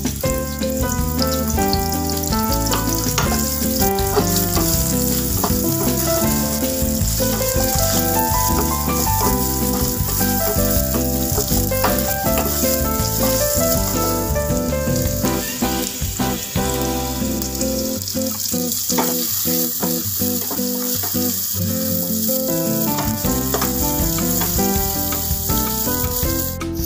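Sliced onions sizzling as they fry in hot oil in a pan, with a steady hiss. Background music with a melody of short notes plays throughout; its bass drops out for a few seconds about two-thirds of the way through.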